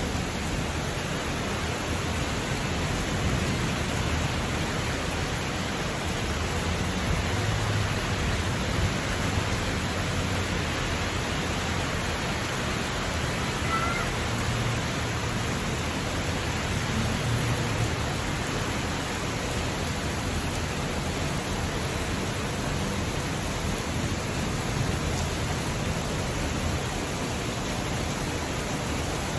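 Steady hiss of heavy rain falling, with a low rumble underneath.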